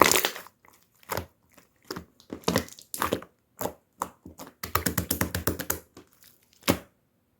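Slime being squeezed and pressed by hand, giving off sharp crackling pops. A quick run of pops comes about five seconds in, then one last sharp pop near the end.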